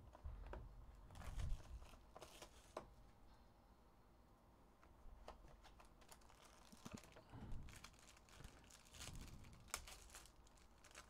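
Faint crinkling and rustling of packaging as a trading-card box is opened and its wrapped contents handled, with light taps and clicks of the cardboard box and a couple of soft thuds in the first two seconds.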